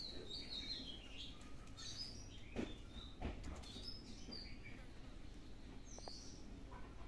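Small birds chirping in short, high calls on and off, with a couple of soft knocks about halfway through.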